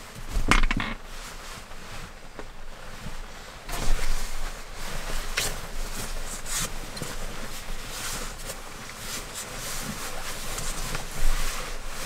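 Rustling of a synthetic winter sleeping bag and a puffy down jacket as a person wriggles into the bag and settles lying down, with a few louder knocks and creaks from moving against the camper's bed and wooden interior.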